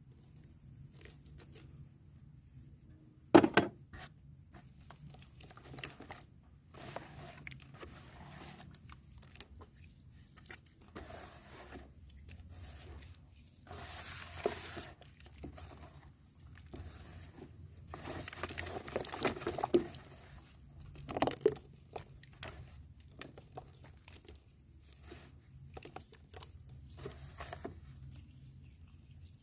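Red and yellow chalk paste being crushed: irregular crunchy crackling with busier patches, and a sharp loud crack about three and a half seconds in and another around twenty-one seconds.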